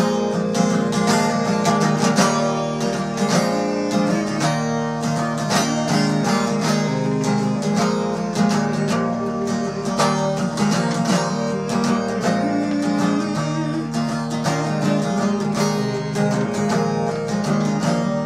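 Acoustic guitar strummed in a steady rhythm of chords, with no voice.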